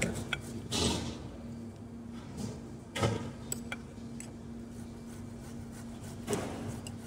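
Kitchen handling noises as salsa bandera (pico de gallo) is added to a taco: three brief scrapes and knocks spread through the stretch, over a steady low hum.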